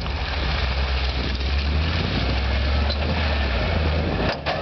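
Land Rover Defender 90's engine running at low, steady revs as it crawls over a rutted sandy off-road track, a constant low drone. The sound drops out briefly near the end.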